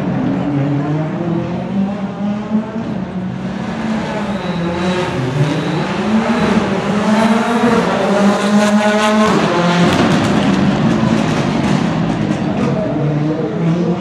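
Rally car engine at full throttle, revving up and dropping back repeatedly as it shifts through the gears. It is loudest as the car passes close about ten seconds in, and the pitch falls as it pulls away.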